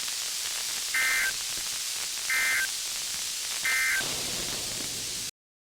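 NOAA Weather Radio SAME end-of-message (EOM) tones: three short two-tone digital data bursts, just over a second apart, over steady radio static hiss, signalling the end of the warning broadcast. The audio cuts off abruptly near the end.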